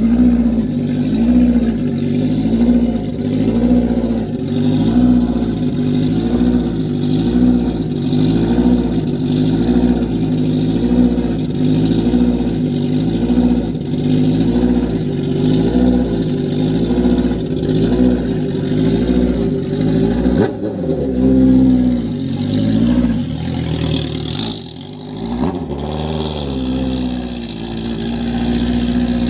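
Suzuki Hayabusa inline-four superbike with an aftermarket exhaust, idling with a lumpy beat that wavers about once a second. About 20 seconds in it revs up and pulls away, goes quieter as it moves off, and rises in pitch again near the end.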